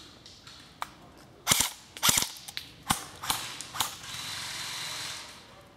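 Airsoft guns firing: a few faint clicks, then two loud clusters of quick shots about a second and a half and two seconds in, and three more single cracks over the next two seconds. A steady hiss follows for about a second near the end.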